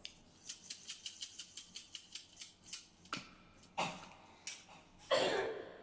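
Knife chopping rapidly on a cutting board, about six or seven even strokes a second, then a few heavier separate strokes and scrapes, the loudest a longer scrape about five seconds in.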